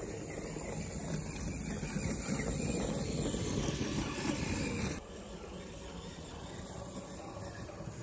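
A 1/64-scale RC dump truck's micro N10 electric motor and gears running steadily as the truck drives, dropping quieter at a cut about five seconds in.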